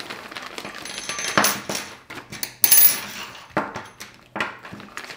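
Small metal hardware parts from an amplifier kit tipped out of a plastic bag and clinking onto a wooden tabletop, with the bag rustling. There are a handful of separate clinks, the loudest about two and a half seconds in.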